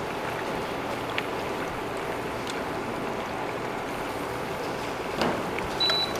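Steady rushing background noise with a few light clicks, a louder short clatter about five seconds in, and a brief high beep just before the end.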